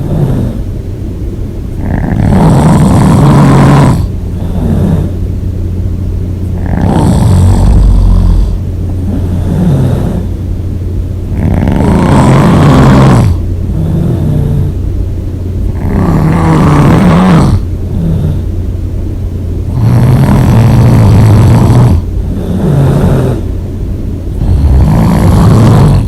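A person snoring loud and hard: six loud snores, about one every four to five seconds, with quieter breathing between them.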